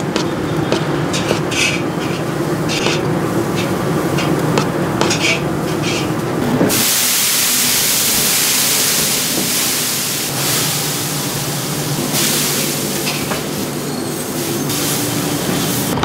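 Dosa batter stirred and slapped by hand in a metal pot, with short clicks and scrapes. About seven seconds in, water hits the hot iron dosa griddle (tawa) and flashes to steam with a sudden loud hiss that swells and eases in several waves: the griddle being wetted and cleaned before the batter goes on.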